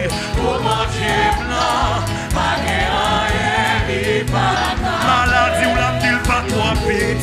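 Gospel music: a choir singing over a steady bass line and a regular beat.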